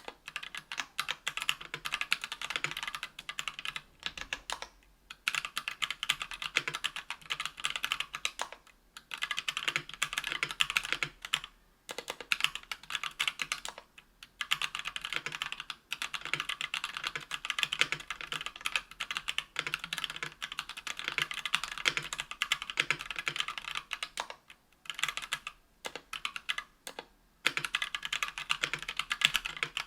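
Typing on a 60% aluminium-case keyboard with stock, unlubed Kailh BOX Red linear switches, an aluminium plate and PBT keycaps: rapid keystroke clicks in runs of a few seconds, broken by short pauses.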